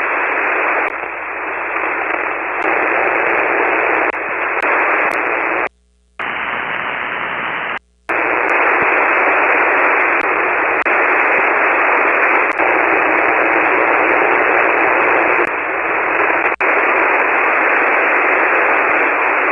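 Open single-sideband ham radio channel on the 40-metre band with no station answering: steady receiver hiss through the narrow voice passband, with a few faint clicks. It cuts out briefly twice, about six and eight seconds in.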